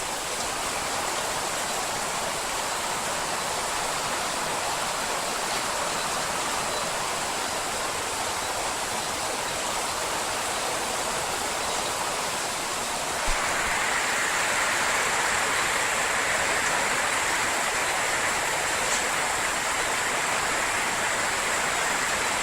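Torrential tropical rain pouring down as a dense, steady rush of water noise. It gets louder about 13 seconds in.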